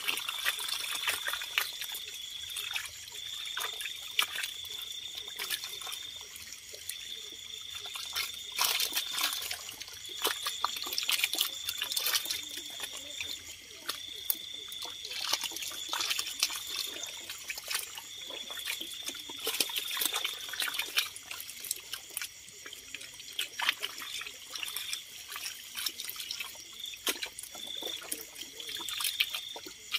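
Shallow water trickling over rock, with a crowded mass of small fish flapping and splashing in it: many short sharp splashes throughout. A steady high trill runs in the background, breaking off every second or two.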